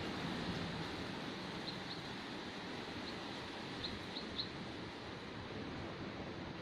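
Strong wind blowing steadily, a dense rushing noise. A few short, faint high bird chirps come through in the middle.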